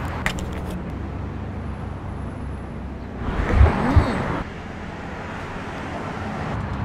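City street traffic noise, a steady rumble of cars passing on the road. There are a few sharp clicks at the very start as a plastic bottle cap is twisted open, and a louder rush with two low thumps about three and a half seconds in.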